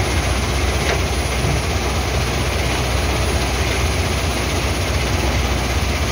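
Crusher plant running: a steady, loud machinery drone with a strong low rumble.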